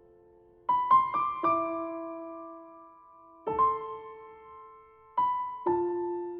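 Slow, gentle piano music: a few notes struck in small groups about a second in, about three and a half seconds in, and near the end, each left ringing and fading away.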